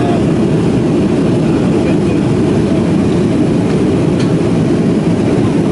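Steady low rumble of an airliner cabin in flight: jet engine and airflow noise heard from inside a Boeing 737.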